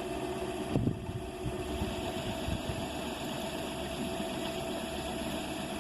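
Vintage Myford lathe, its DC motor driven by a homemade PWM speed controller, running steadily: an even motor hum with a constant whine.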